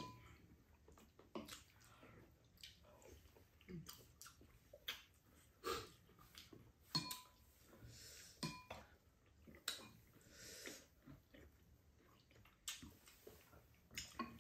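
Faint eating sounds at a table: chewing, with scattered short clicks and clinks of chopsticks and spoons against ceramic bowls and a pan.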